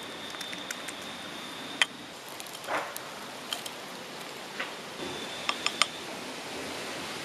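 Sharp clinks of a metal spoon and ladle on a ceramic soup bowl: one about two seconds in and three in quick succession near the end, with small clicks and a brief rustle between, over a steady background hiss. A faint high steady tone sounds for the first two seconds and again briefly later.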